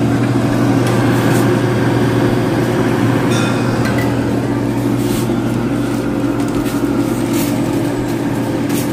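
A steady, loud mechanical hum with a low drone, cutting off suddenly near the end.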